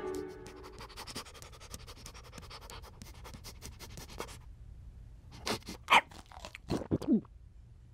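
A cartoon dog panting quickly for about four seconds, then a few short whimpering calls, the last sliding down in pitch.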